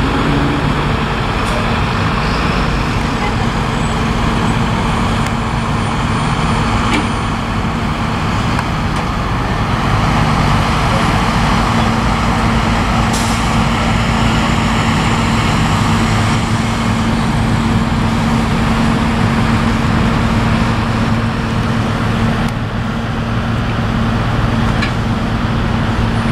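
Heavy-haul diesel tractor trucks running steadily under load, a continuous low engine drone, as they move an oversized load on a multi-axle trailer at walking pace.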